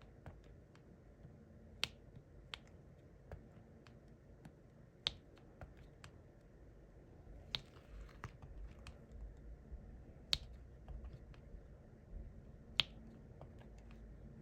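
Diamond-painting pen tapping resin drills onto the sticky canvas: sharp small clicks every couple of seconds, with fainter ticks between.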